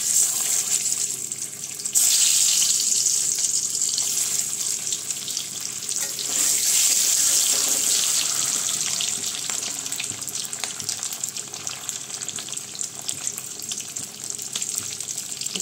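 Turmeric-and-chili-coated boiled eggs sizzling and crackling in hot oil in a kadai. The sizzle surges each time an egg goes in, about two seconds in and again around six seconds, then settles to a quieter, steadier hiss.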